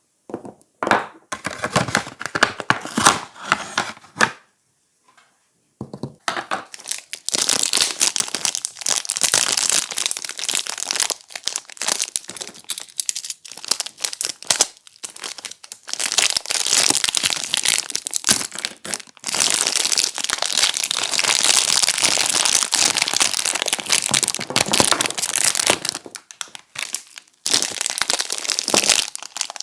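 Soap wrapping being crinkled and unwrapped by hand, with a rustling crackle. It comes in short bursts at first, then after a brief pause runs almost without break.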